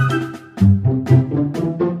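Instrumental background music: a bouncy tune of short, evenly spaced notes over a bass line.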